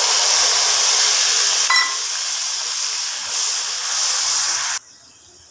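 Wet masala paste of ground garlic, ginger, onion and green chilli, just poured into hot oil in a kadai, sizzling hard with a steady hiss. The sizzle stops abruptly near the end.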